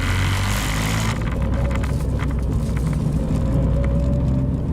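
Toyota 86 / Subaru BRZ flat-four boxer engine running steadily under load on a time-attack run, with a brief rush of noise in the first second.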